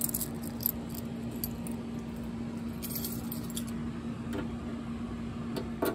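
A small bunch of brass keys jangling and clicking while the right key is picked out and fitted to the fire alarm panel cabinet's door lock, with light scattered jingles over a steady low hum.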